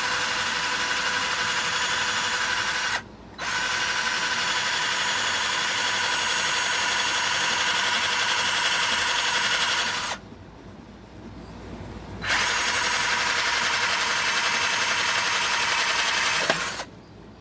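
Cordless drill with a large bit drilling a hole, its motor giving a steady whine. It runs in three long stretches, with a brief stop about three seconds in and a longer two-second stop about ten seconds in, and it stops near the end.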